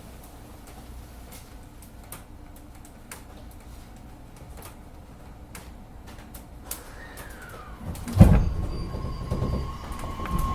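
Inside a JR Kyushu 813 series electric train car, quiet with a few faint clicks, until about eight seconds in a sudden loud low clunk and rush sound out. A steady electric whine from the traction equipment follows, as the motor car starts to draw power.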